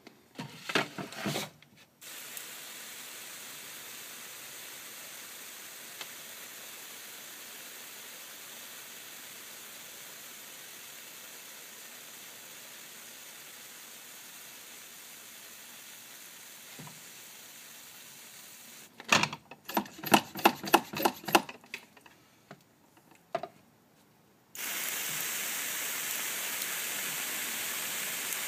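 Water spray mister hissing steadily as the reptile enclosure is misted. About two-thirds through comes a quick flurry of short spray bursts, and near the end the spray runs again, louder and steady.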